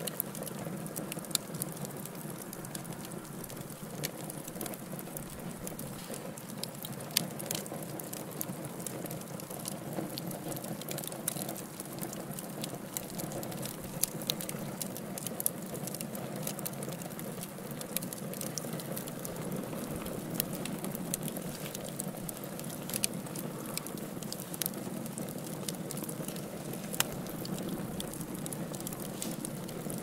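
Wood fire burning in a fireplace: a steady low rush of flames under frequent sharp crackles and pops, with a few louder pops scattered through.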